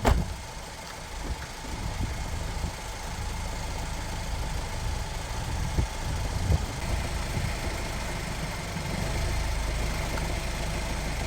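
Car engine idling steadily, with a few light knocks.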